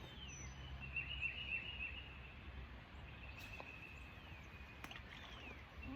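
Birds calling: several short descending whistled notes and trilled phrases, over a steady low background rumble.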